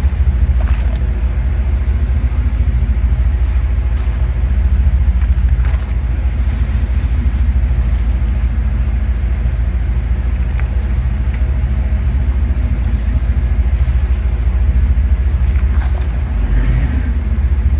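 Boat engine running steadily, a loud low hum that holds one pitch.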